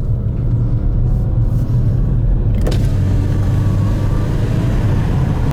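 Renault Megane Estate GT220 driving, heard from inside the cabin: a steady low rumble of engine and road noise, with faint rising engine tones and one sharp click a little before halfway.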